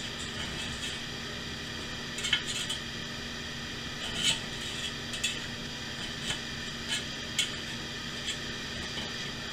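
Metal spatula scraping and knocking against a cast iron loaf pan as a meatloaf is worked loose. There are several short, sharp scrapes and clicks a second or so apart, over a steady low hum.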